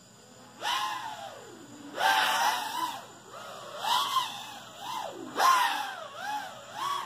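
Electric motor of a radio-controlled car whining in about six throttle bursts, its pitch rising and falling with each one.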